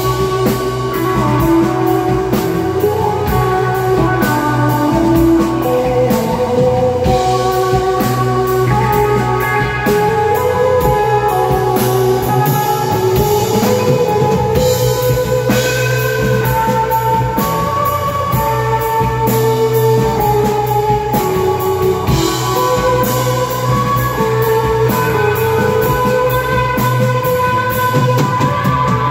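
Psychedelic rock band playing live with electric guitar, bass guitar and drum kit in a loud instrumental jam. The guitar holds long notes over a steady drum beat and a continuous bass line.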